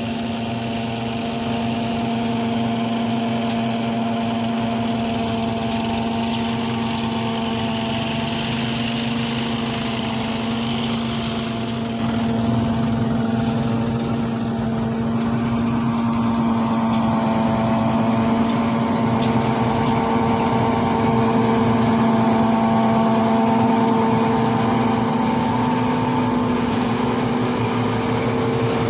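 A self-propelled forage harvester and the tractor beside it run steadily while harvesting and chopping green fodder, giving a constant-pitched mechanical drone. It gets a little louder about twelve seconds in.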